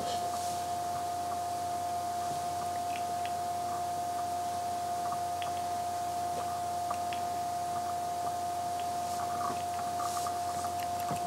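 A steady, high-pitched hum holding one pitch, with faint scattered ticks and rustles as a blanket and doll are handled.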